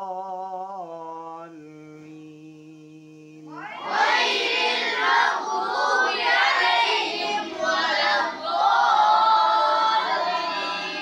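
Quranic recitation: one voice holds a long drawn-out note, then about four seconds in a group of boys' voices comes in much louder, reciting together in unison.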